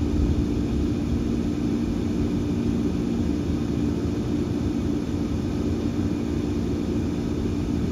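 Steady low engine rumble with a constant low hum, unchanging throughout.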